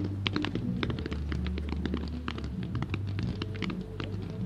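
Low-level fireworks crackling: a dense, uneven run of small sharp pops, over a steady low drone.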